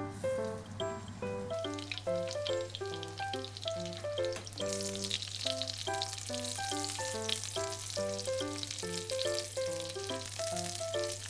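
Food sizzling and crackling as it fries in a pan, coming in about two seconds in and growing stronger, under light background music made of short plucked-sounding notes.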